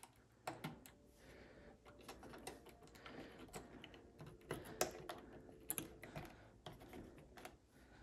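Faint, irregular small clicks and taps of fingers working thermostat wires into the plastic terminal block of a Honeywell T6 Pro thermostat wall plate, with a couple of sharper clicks about five and six seconds in.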